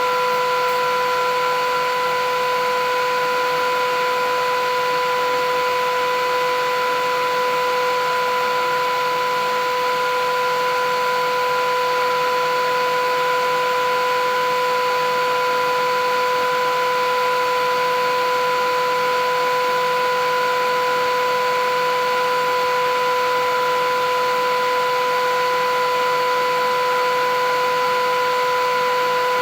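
Philips 8000 Series vacuum cleaner running steadily: a constant motor whine over the rush of air, unchanging in pitch and level.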